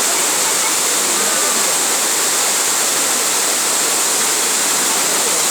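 Waterfall running: a loud, steady rush of falling water, heavy in high hiss, with no breaks.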